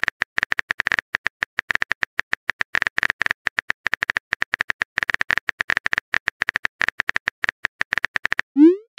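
Texting-app keyboard typing sound effect: rapid, uneven clicks as a message is typed, ending near the end in a short rising swoop as the message is sent.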